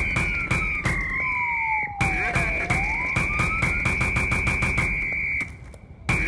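Background music with a steady beat and a held high note, over which a siren wails slowly down in pitch and back up again. The music cuts out briefly near the end.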